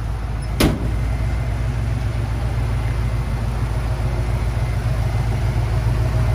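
Blueprint 302 crate V8 with headers into dual exhaust idling steadily, with one sharp knock about half a second in.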